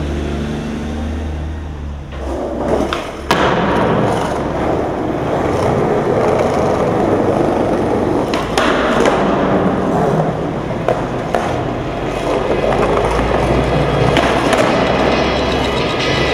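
Skateboard wheels rolling on pavement, broken by sharp clacks of the board being popped and landing, the first loud one about three seconds in.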